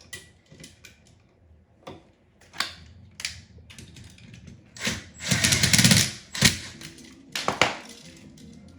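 Scattered clicks and small knocks of the outlet, wires and tools being handled while the ground wire is hooked to the outlet's green ground screw, with a louder scraping rustle about five seconds in.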